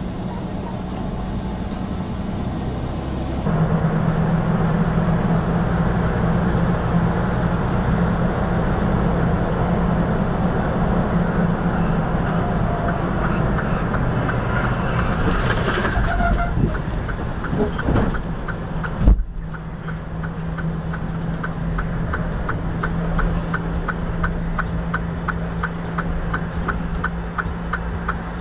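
Steady engine hum and road noise of a semi truck heard from inside the cab. A single sharp thump comes about 19 seconds in, and after it a regular ticking starts, about two clicks a second.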